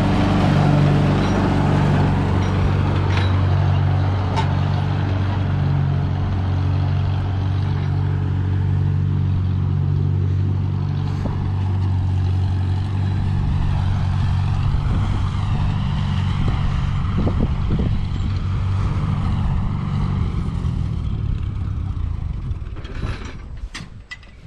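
A vehicle engine running steadily at low revs, which fades away about two seconds before the end, followed by a few sharp clicks.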